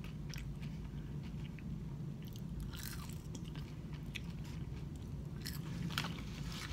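A person chewing French fries close to the microphone, with a scatter of short mouth clicks, over a steady low hum.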